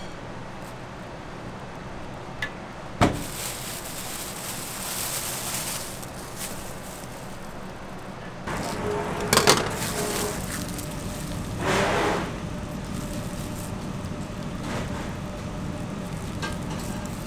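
Food-prep handling noises over a steady kitchen hum: a sharp knock about three seconds in, then a plastic bag rustling, then a clatter of utensils with a brief metallic ring about nine seconds in and another short scrape a few seconds later.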